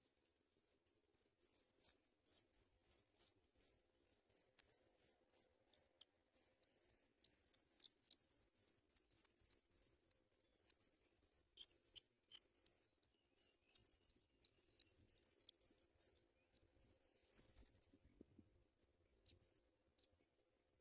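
Pipit nestlings begging: a rapid, high-pitched chatter of short calls that starts about a second in, runs in bursts, and dies away near the end.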